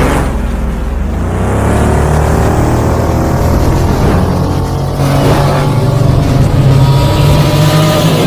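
A car engine revving loudly, its pitch rising in several sweeps over a heavy low rumble.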